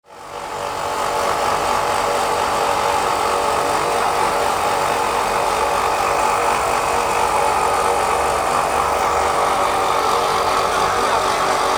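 Compressed-air paint spray gun hissing steadily with a steady hum underneath, fading in over the first second.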